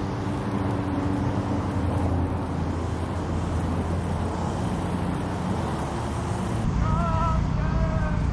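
Steady low drone of motor traffic with an engine hum running under it. After a cut about seven seconds in, a few short warbling chirps are heard.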